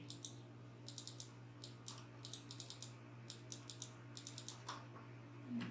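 Faint light clicking from a computer keyboard and mouse, in short clusters about every half second, over a steady low electrical hum.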